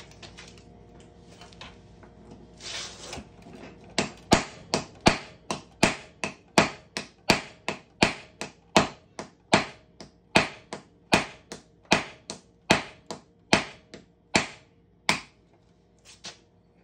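Hammer driving a 5/8-inch hole punch through a self-centering die to cut the centre out of a one-ounce copper round. About thirty sharp, evenly paced blows, roughly three a second, start about four seconds in and stop shortly before the end.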